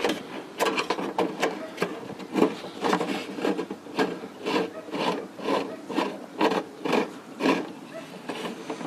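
A run of short rasping, rubbing strokes, irregular at first, then a steady rhythm of about two a second.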